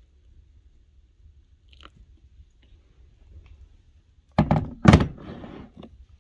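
Kitchen handling noise: two loud thumps about half a second apart, followed by a short rough rustle, as things are set down and moved on the counter.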